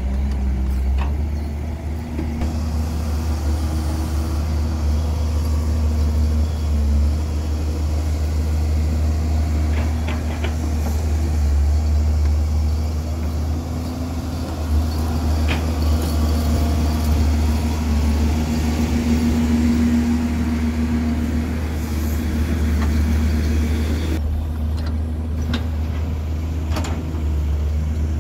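Diesel engine of a Hyundai R140W-7 wheeled excavator running under load as it digs and swings soil into a dump truck, a steady low rumble that swells and eases with each work cycle. A few sharp knocks come through, about a third and halfway in.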